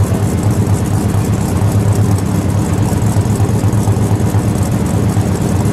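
1969 Ford Torino Talladega's 428 Cobra Jet V8 idling steadily, heard at its dual exhaust tailpipes.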